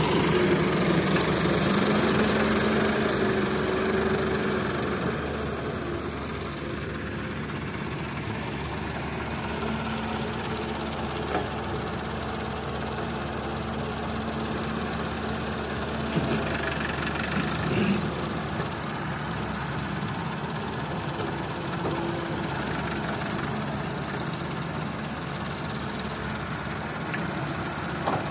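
Tractor diesel engine running steadily, louder for the first few seconds and then a little lower.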